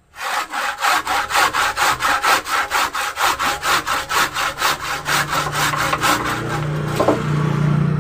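Handsaw cutting through a woody bougainvillea branch: quick, even back-and-forth strokes, about five a second, that blur together near the end.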